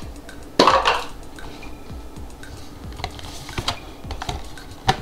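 Hands handling cardboard packaging and a charging cable: a loud rustling scrape about half a second in, then scattered light taps and clicks, and a sharp click near the end.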